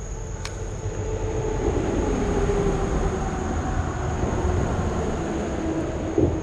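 A vehicle passing by. Its noise swells over a low rumble, and a single tone slowly falls in pitch as it goes by.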